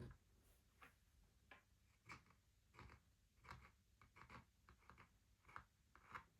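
Faint, irregular light taps and clicks, about two a second, from fingers handling a wooden Shut the Box game.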